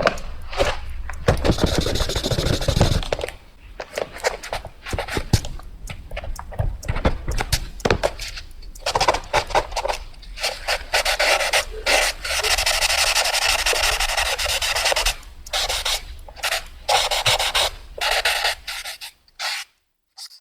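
Fast drawing: a drawing tool scratching quickly across a surface in short rapid strokes, broken by longer continuous scribbles, stopping about a second before the end.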